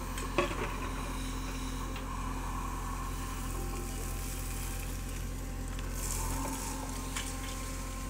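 JCB 3DX backhoe loader's diesel engine running steadily under load as the backhoe digs and lifts a bucket of mud, with a couple of short knocks about half a second in.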